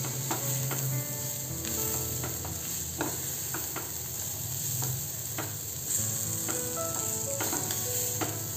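Sweet corn kernels sizzling in hot oil in a steel pan as they are stir-fried with spices, with a spatula stirring and scraping against the pan now and then.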